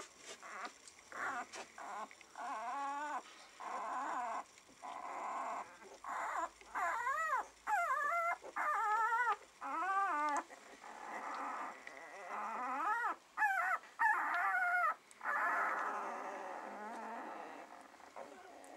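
Litter of nine-day-old Border Collie puppies whimpering and squealing as they crawl over one another: a string of short, high cries that waver up and down in pitch, one after another.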